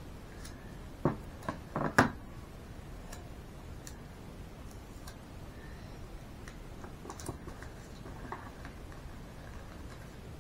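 Scissors and tape being handled on a tabletop: a quick run of four sharp clicks and knocks between about one and two seconds in, the last the loudest. Faint ticks and rustles follow as tape is pressed onto baking paper.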